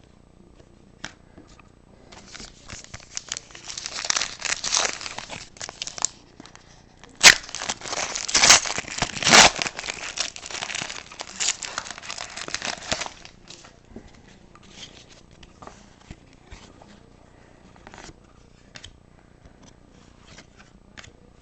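A trading card pack wrapper being torn open and crinkled in the hands, in two spells of crackling, the louder about seven to ten seconds in, then a few light clicks as the cards are handled.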